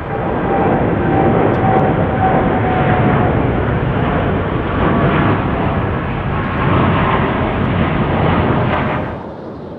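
Jet engines of a United Boeing 787 climbing out after takeoff: a loud, steady roar with a faint falling tone in the first few seconds. The roar drops off abruptly near the end.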